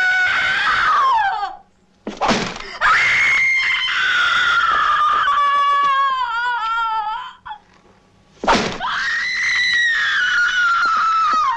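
A woman screaming in pain as she is beaten: three long, high screams. The first ends about a second and a half in. The second falls in pitch and breaks into a quavering wail near its end. The third starts near the end, and a short sharp noise comes before each of the last two.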